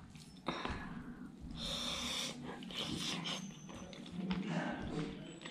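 Close-miked eating sounds from a mouthful of butter clam curry and rice eaten by hand: wet chewing and mouth noises, with a sharp click about half a second in and short hissy stretches around the middle.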